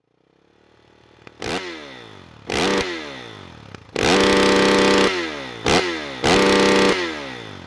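Motocross dirt bike engine revved hard in short throttle blips and two held revs of about a second, the engine note falling away after each rev.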